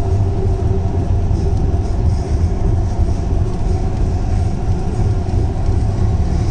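Hyderabad Metro train running at speed along its elevated track, heard from inside the car: a steady, even rumble of wheels on rail with a constant low hum.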